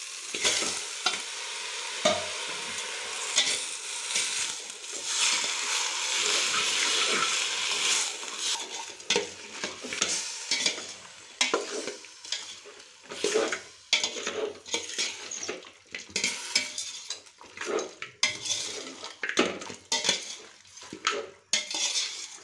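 Raw country-chicken pieces sizzling as they go into hot oil in a stainless steel pot, with a steel slotted spoon scraping and clinking against the pot as they are stirred. The sizzle dies down about eight seconds in, leaving mostly the scrape and clatter of the spoon.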